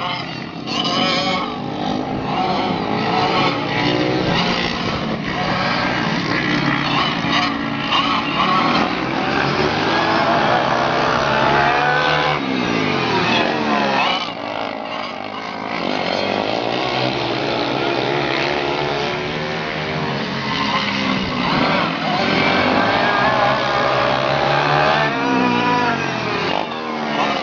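Several dirt-track racing kart engines running hard at high revs, their pitch sweeping up and down as the karts pass close by and pull away around the oval.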